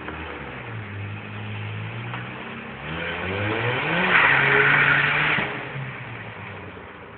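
Mazda RX-7's rotary engine revving, its pitch climbing about three seconds in. Just after, the tyres screech loudly for about a second as the car drifts, and the sound then fades away.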